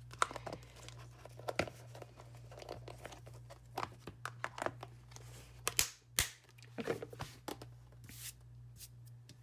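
Paper and craft supplies being handled on a desk: crinkling and rustling with scattered small clicks and taps, two sharper clicks about six seconds in, over a steady low hum.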